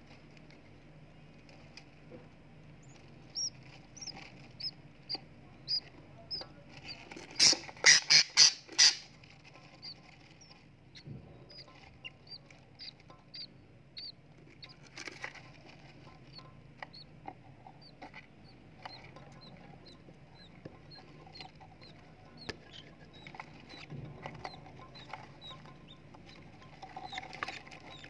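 Budgerigar chicks in a nest box peeping: a long run of short high peeps at about two a second, broken by four loud harsh calls in quick succession a little over halfway through the first third. Near the end there is a short burst of rustling and calling.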